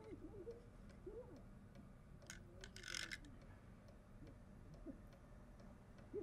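Quiet room with a clock ticking faintly and steadily, soft low hooting calls now and then, and a brief rustle about two and a half seconds in.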